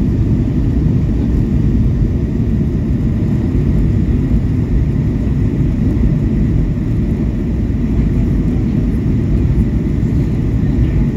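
Steady cabin noise of a jet airliner descending on approach: a deep, even rumble of engines and airflow, with a faint steady high whine.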